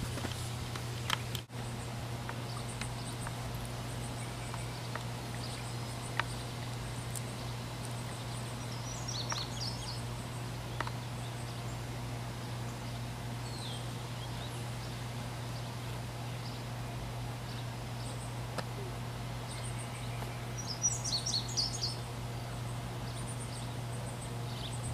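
Outdoor ambience: a steady low hum with birds chirping now and then, a short run of chirps about nine seconds in and a louder one about twenty-one seconds in.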